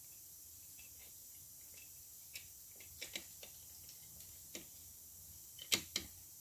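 Light metal clicks and taps of a chainsaw muffler's spark arrestor screen and cover plate being fitted onto their mounting bolts by hand. The clicks are scattered and irregular, with the loudest two close together near the end.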